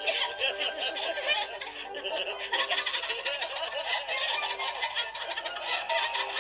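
Cartoon goose cackling in a rapid run of short calls, mixed with giggling laughter.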